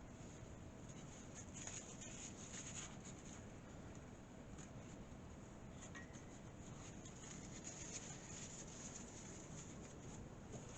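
Faint, light rubbing and scratching sounds of small hand work over a quiet background hiss.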